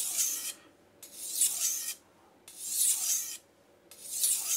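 Steel chef's knife blade drawn across a King Deluxe 1000 grit whetstone in four long strokes, about one every second and a half. These are burr-removal strokes after a burr has been raised.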